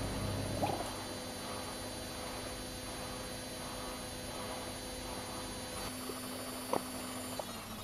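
Airlock on a fermenting cider vessel giving a short bubbling blip about half a second in and another near the end, over a steady low hum.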